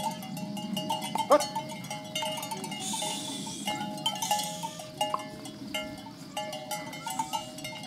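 Bells on a herd of cattle clanking irregularly as the animals walk, with one short rising call about a second in.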